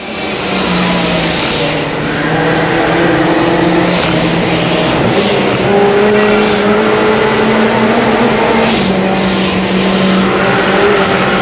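In-car sound of a VW Polo race car's engine running hard on a hill-climb run, its pitch shifting in steps through the gears.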